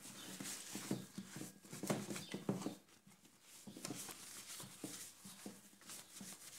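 Faint rubbing of a cloth over a stainless steel electric kettle in short wiping strokes. The strokes grow quieter about halfway through.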